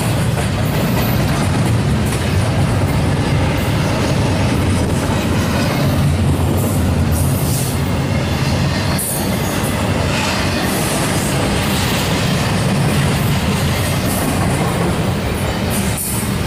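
Double-stack intermodal freight cars rolling past: a steady rumble of steel wheels on the rails, with scattered short clicks and squeaks.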